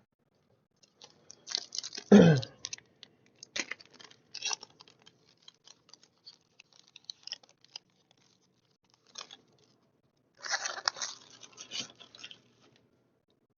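Foil wrapper of a Pokémon TCG booster pack crinkling and being torn open by hand, in two spells of crackling. The loudest moment is a short sound just after two seconds in that drops in pitch.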